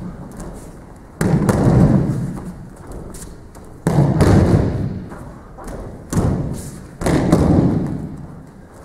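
Aikido breakfalls on tatami mats: a thrown partner hits the mat with a heavy thump four times, the last two close together, each thump fading away over about a second.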